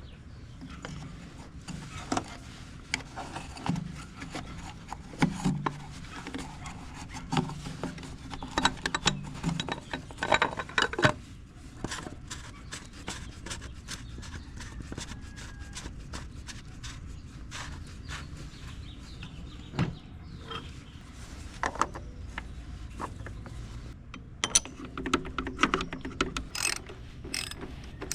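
Oil filter cap of a VW 2.0L TDI being put back into its housing and tightened with a ratchet on a long extension and socket: scraping, knocks and runs of ratchet clicks, thickest near the end.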